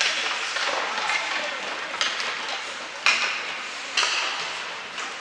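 Ice rink game sound: a steady hiss of skates and arena murmur, broken by a few sharp stick-and-puck clacks, the loudest two about three and four seconds in.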